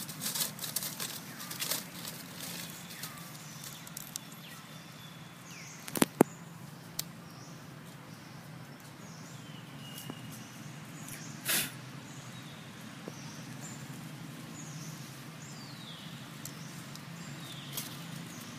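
Outdoor ambience with dry leaves crackling as long-tailed macaques scramble over the stones: a cluster of sharp crackles in the first two seconds, a louder double crackle about six seconds in and another near the middle. Faint high calls drift in over the second half.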